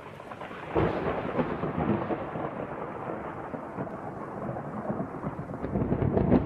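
Thunderstorm sound effect: a sudden thunderclap about a second in, then a long crackling rumble that swells again near the end.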